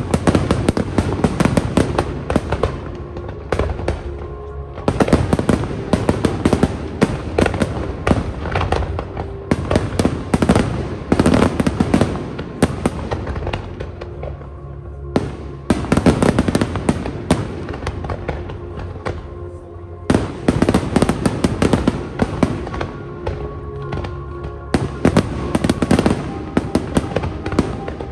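Fireworks display: dense volleys of bangs and crackling bursts that come in waves, several of them starting abruptly, with music playing underneath.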